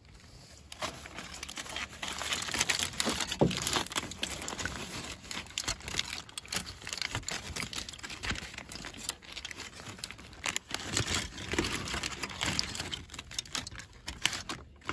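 Aluminium foil crinkling and crackling as a tin-foil cooking packet is pulled open by hand. The crackles are dense and irregular and start about a second in.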